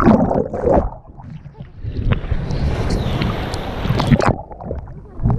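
Sea waves washing over an action camera held at the water's surface: loud splashing and rushing water, twice turning muffled and dull as the camera goes under.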